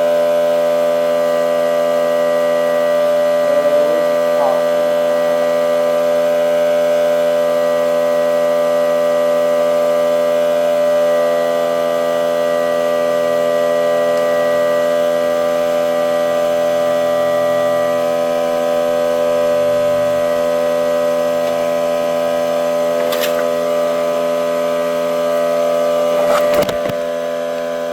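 Air compressor running steadily with a loud, even hum while it refills its tank for a pneumatic stapler, with a couple of clicks near the end.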